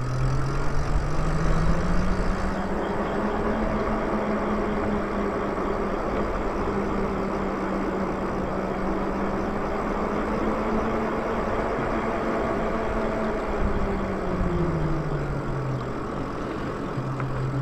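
Electric motor of a moped-style e-bike whining under way, its pitch rising over the first couple of seconds as the bike speeds up, holding steady, then falling near the end as it slows. A steady rush of wind and road noise runs underneath.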